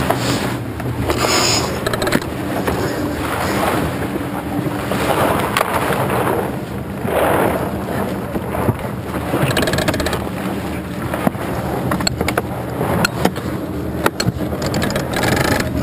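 Sailboat under way: wind on the microphone and water rushing along the hull, swelling twice, with scattered sharp clicks and knocks from the rigging and deck gear in the later part.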